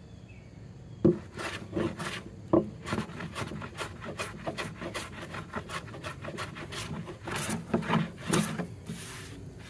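A No. 5 jack bench plane shaving wood in a run of quick scraping strokes, starting about a second in with the loudest stroke and stopping shortly before the end.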